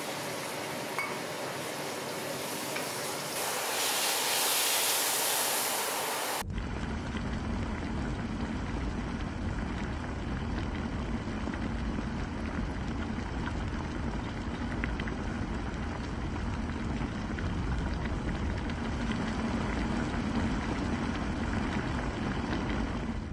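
A hot wok of browned pork belly sizzling and hissing as water goes in, the hiss swelling about four seconds in. After an abrupt change about six seconds in, the red-braised pork's liquid boils hard with a steady bubbling rumble.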